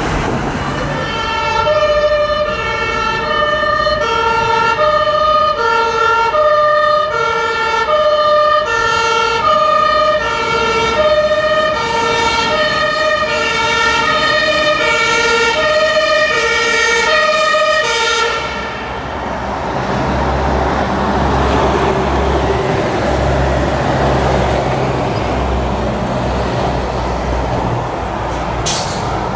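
Fire engine's two-tone siren alternating between a high and a low note, about one full cycle a second, stopping about eighteen seconds in. After that, a heavy truck engine and traffic rumble.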